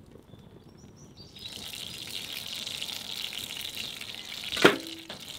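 Wood fire crackling and hissing in an iron Kadai fire-pit bowl, starting abruptly a little over a second in, with birds chirping before it. Near the end one sharp knock with a brief ring as a log is put into the fire pit.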